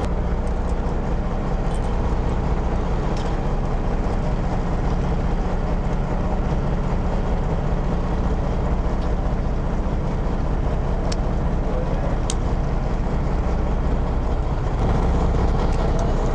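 Boat engine running steadily, a low even hum, with a couple of faint ticks about eleven and twelve seconds in.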